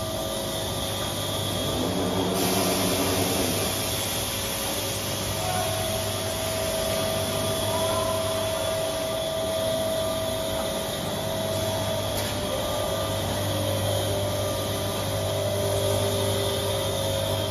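Steady whir and hum of a PUR glue rolling line for mattress foam running, its conveyor carrying foam sheets, with a few steady tones over a low hum.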